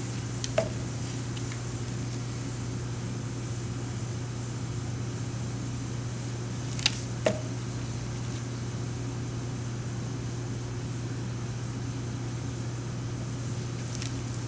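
Steady low mechanical hum, with a few light clicks of plastic pouring cups being handled and set down: one about half a second in, two close together about seven seconds in, and one at the end.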